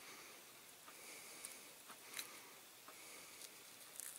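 Near silence with faint scattered ticks and crackles as masking tape is peeled off a diecast model car body with a pointed tool; the sharpest tick comes about two seconds in.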